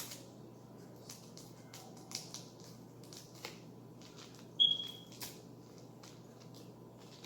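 Light clicks and rustles of small craft materials being handled, with one short, high squeak about four and a half seconds in.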